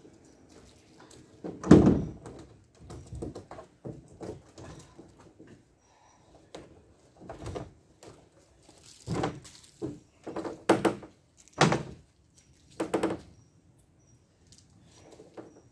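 Irregular knocks and thuds of kayak gear being loaded into a car, with car-door or boot thunks; the loudest comes about two seconds in, and a quicker run of knocks comes near the end.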